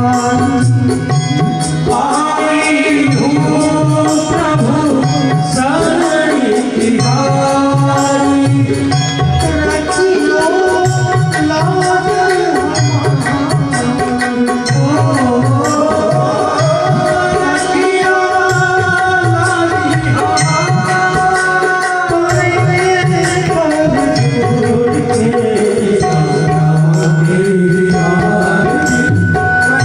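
Indian devotional bhajan music: tabla keeps a steady beat under a gliding melody line, with some singing.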